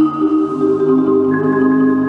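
Two marimbas playing slow, sustained four-mallet chords, the notes held as rolls. The harmony shifts about half a second in, and a higher note joins a little later.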